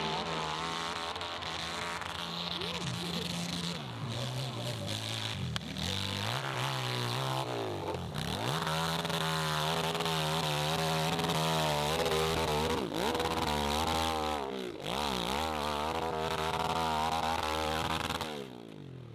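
Dirt bike engine revving hard under load on a steep hill climb, its pitch rising and falling again and again as the throttle is worked, with a buzzy, chainsaw-like note. The engine sound falls away suddenly near the end.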